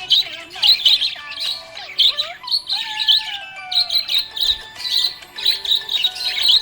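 Budgerigar chirping and warbling: a fast, continuous run of high chirps, with a few longer whistled glides in the middle.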